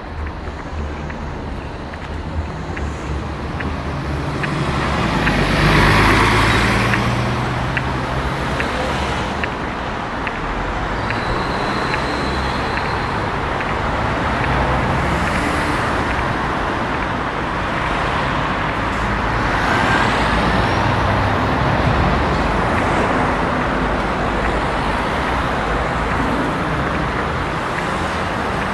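City street traffic: cars and buses running past in a steady stream, with one vehicle passing loudest about six seconds in and another swell around twenty seconds.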